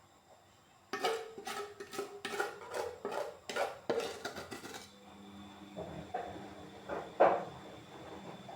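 Kitchen dishes and utensils clattering: a quick run of a dozen or so clinks and knocks lasting about four seconds, then a few scattered softer knocks.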